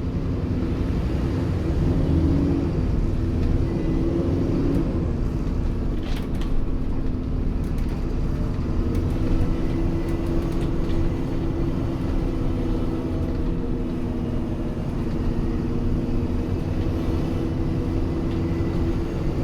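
Alexander Dennis Enviro400 Trident double-decker bus running, heard from inside the cabin: a steady engine drone over a low rumble, its pitch rising slightly a few seconds in and then holding level, with a few light clicks about six seconds in.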